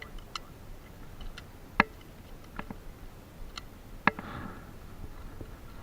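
A few sharp cracks amid scattered lighter clicks, the two loudest about two and four seconds in, the second followed by a short echo.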